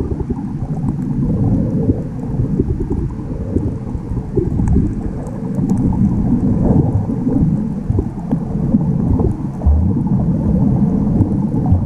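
Muffled underwater rumble and sloshing of water moving around a submerged GoPro HERO5's built-in microphone while snorkeling, swelling and easing irregularly, with a few faint ticks.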